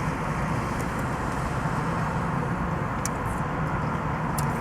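Steady road traffic noise, with a few faint short clicks.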